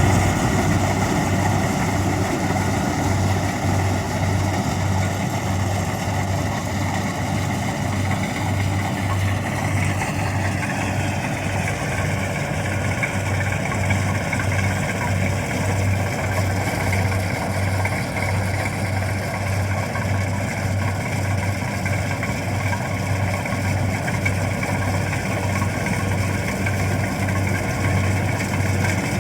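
Kubota combine harvester running steadily during rice harvesting: a steady engine drone under a higher mechanical whine from the machine, which drops slightly in pitch about ten seconds in.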